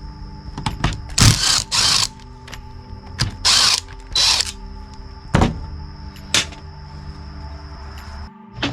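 Hand tools clicking and rattling on a string trimmer's plastic throttle-handle housing as it is taken apart. Several short, loud ratcheting bursts come in the first half, with scattered clicks between them.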